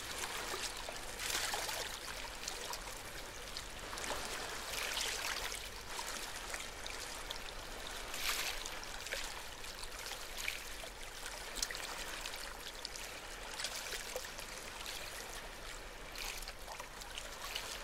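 Steady rushing, trickling noise like running water, swelling and easing every few seconds.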